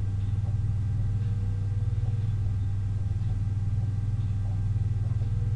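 A steady low hum with no other sound over it.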